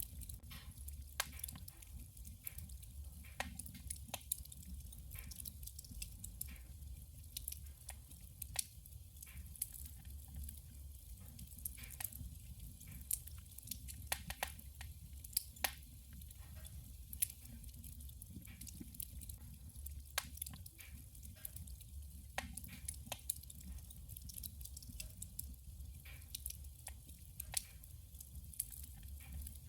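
Wood fire burning in a wood stove: irregular crackles and sharp pops, several a second, over a steady low rumble.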